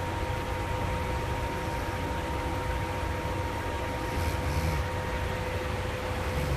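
Sleepers snoring: one snore about four and a half seconds in, with another starting near the end, over a steady hiss and a constant hum.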